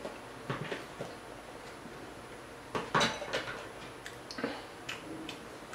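Scattered light clicks and taps of small hard objects being handled, with a louder clatter about three seconds in.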